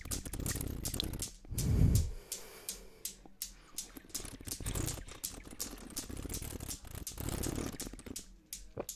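ASMR mouth sounds made right against a microphone: a quick, irregular run of wet mouth clicks and lip smacks, with a few breathy puffs on the grille, the strongest a little under two seconds in.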